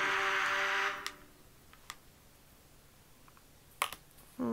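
Background music that stops about a second in, then a few sharp clicks, the loudest near the end, from a small precision screwdriver working the corner screws on an iPad mini 2's metal frame.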